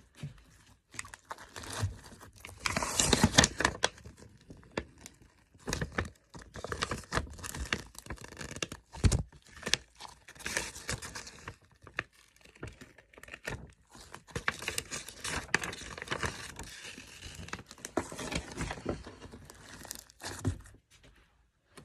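Slime being played with by hand, squeezed and stretched, giving bursts of sticky crackling, clicks and small pops that come and go.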